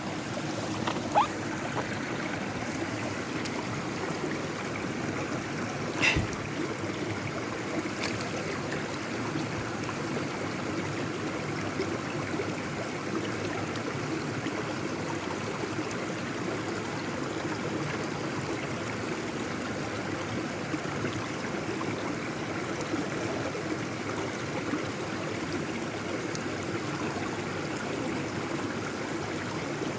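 Mountain stream water rushing steadily over rocks, with a few short knocks about a second in and around six seconds.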